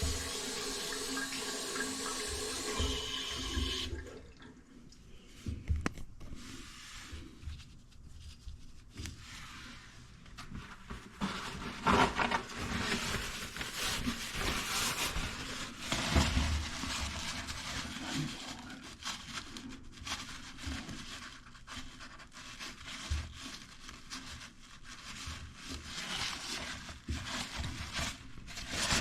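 Water running steadily from a newly installed sink faucet, shut off about four seconds in. After that come scattered knocks and handling noises.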